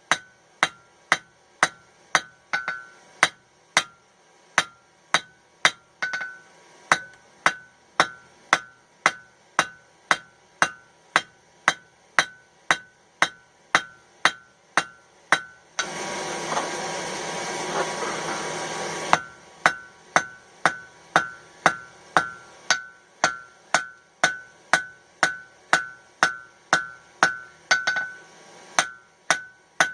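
Hand hammer striking hot mild steel on an anvil at a steady pace of about two blows a second, each blow ringing, drawing out the end of the bar. About halfway through, the blows stop for a few seconds while a steady rush of noise takes over, then the hammering resumes.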